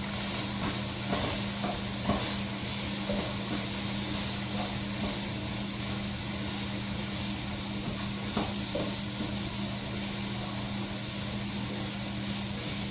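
Onions, garlic and ginger frying in a pan with chicken: a steady sizzle, with a few faint clicks of a stirring utensil.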